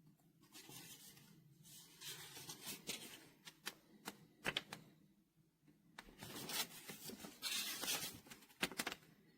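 Short bursts of typing on an RK Royal Kludge R75 mechanical keyboard with silver switches, with a few single sharp key clicks between the bursts.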